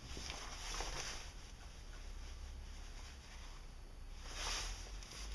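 Faint handling noises: soft rustles and light scrapes, a little louder about a second in and again near the end.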